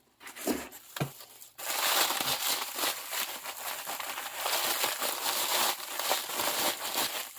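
Packaging being pulled open and crumpled: a few light knocks, then from about a second and a half in a long, loud stretch of crinkling and tearing as the wrapping comes off a parcel.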